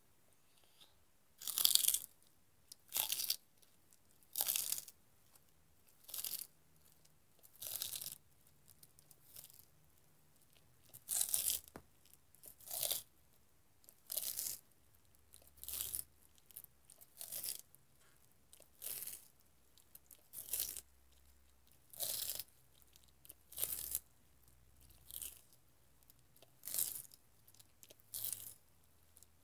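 A tortoise biting into celery stalks, each bite a short, crisp crunch, coming steadily about once every one and a half seconds.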